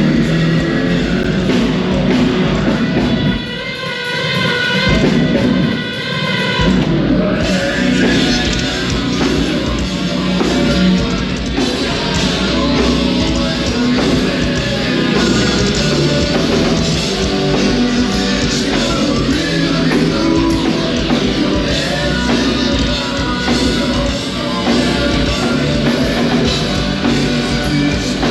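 Heavy metal band playing live and loud: distorted electric guitars, bass, drum kit and singing. About three and a half seconds in, the drums and bass drop out for a few seconds and a held, pitched line rings on its own. The full band crashes back in around seven seconds.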